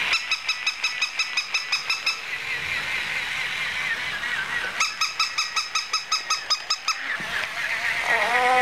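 Electronic light-up toy ball sounding off: two spells of rapid, pulsing beeps, with a warbling electronic tone between them. Near the end comes a short call whose pitch rises and falls.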